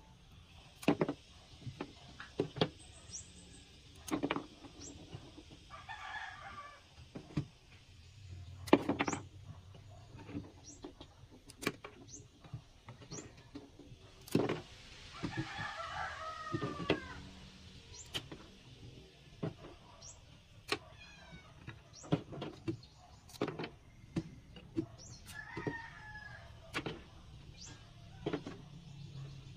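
Scattered sharp clicks and knocks, with a few bird calls between them; the longest call comes around the middle.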